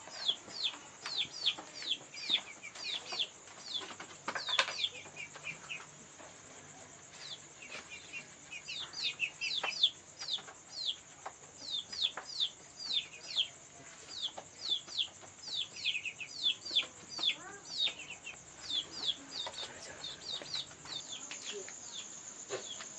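Chicks peeping: many short, high, falling peeps in quick runs, with a steady high drone underneath.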